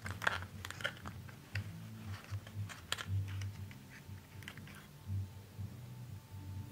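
Clear plastic model-train case being handled: a run of light clicks and taps as the case is worked open and an N scale locomotive is lifted out of its foam insert, with a few low bumps.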